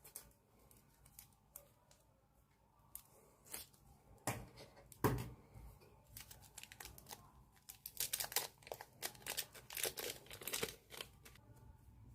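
Slime being handled, giving irregular sticky pops and crackles, a few louder ones near the middle and a thick run of them about eight seconds in.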